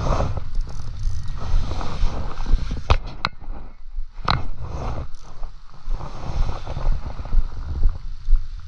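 Wind buffeting a head-mounted camera's microphone, a steady low rumble, with a few sharp clicks about three and four seconds in from a spinning reel being handled during a cast.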